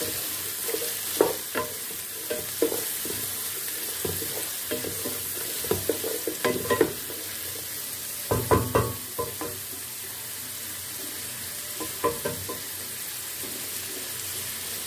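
Diced capsicum, carrot and onion frying in oil and butter in an aluminium pan, with a steady sizzle. A wooden spoon scrapes and knocks against the pan as the vegetables are stirred, busiest about six and a half and eight and a half seconds in.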